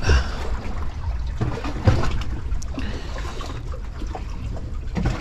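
Sea water washing and trickling against breakwater rocks over a steady low rumble, with a few soft knocks at the start, about two seconds in and near the end.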